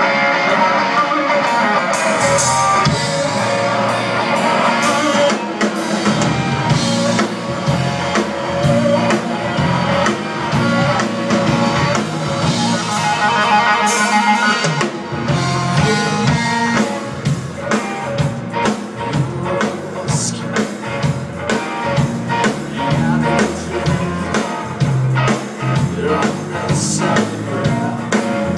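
Live blues-rock band playing, with electric guitar and a drum kit.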